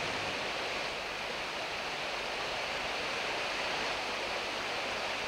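Steady rushing of a hillside stream, an even hiss of running water with no change in level.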